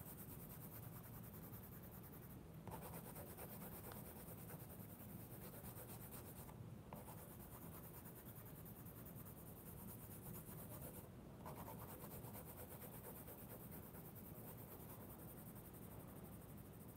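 Faint, steady scratching of a green colour pencil shaded back and forth on thick sketchbook paper, laying down a blending layer, with a few short breaks as the pencil lifts.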